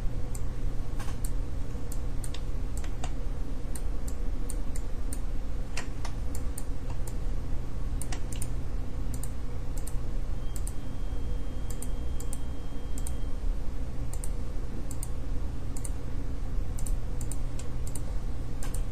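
Irregular clicking of a computer mouse and keyboard over a steady low hum.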